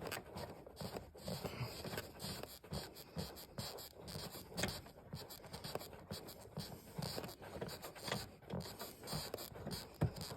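Hands working on car interior parts and fasteners: irregular scraping and rubbing with small knocks, and one sharp click near the end.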